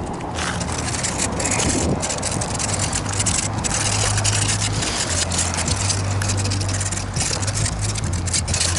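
Strong wind buffeting the microphone: a continuous gusty rumble and hiss, swelling and dropping in irregular gusts.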